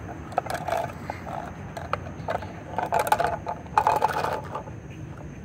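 Hard plastic toy train pieces being set down and slid across concrete: a few clicks and short scraping clatters, the loudest about three and four seconds in.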